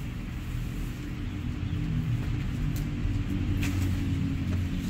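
Low, steady engine rumble of a motor vehicle running nearby, growing a little louder about two seconds in, with a couple of faint clicks.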